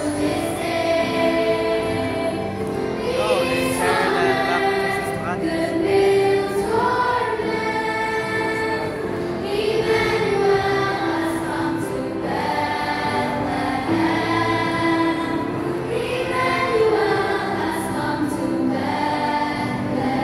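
Choir singing a song with musical accompaniment, the voices holding long notes.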